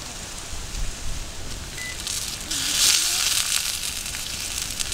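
Zucchini slices frying in a steel pan over a wood campfire: the fire crackles throughout, and about halfway through a loud sizzling hiss from the pan sets in.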